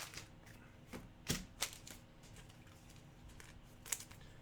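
Trading cards being handled: a few sharp clicks and taps, the loudest about a second and a half in and again near the end, over faint background noise.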